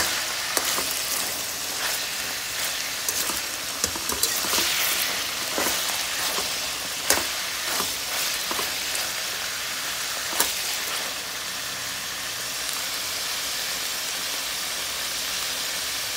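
Ilocos longganisa pork sausages sizzling steadily as they fry in their rendered fat in a steel wok. A metal spatula clicks and scrapes against the pan now and then, most sharply about seven and ten seconds in.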